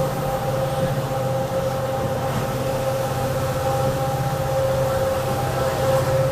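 Indian Railways WDP4D diesel locomotive's turbocharged EMD engine running steadily: a rapid low throb with a steady whine over it.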